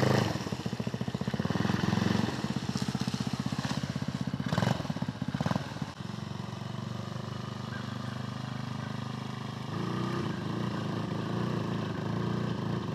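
Small four-stroke go-kart engine running under throttle as the kart drives off downhill, with its valves bent. About six seconds in the engine sound drops sharply and carries on more faintly.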